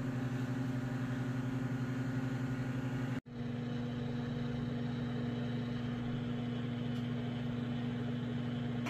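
Hamilton Beach countertop microwave oven running mid-cook: a steady hum with a low buzz. It breaks off for an instant about three seconds in, then carries on unchanged.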